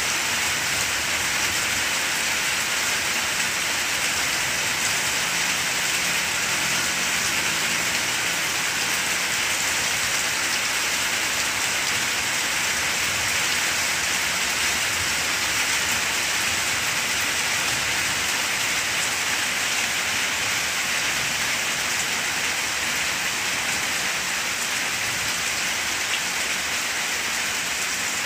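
Steady rain falling on broad banana leaves and surrounding foliage, an even continuous hiss with no letup.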